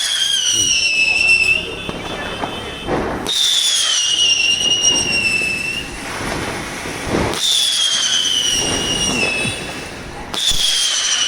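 'Singing birds' Diwali firecracker letting out a series of high whistles, each sliding slowly down in pitch over about two seconds and coming every three to four seconds, with fizzing crackle between them.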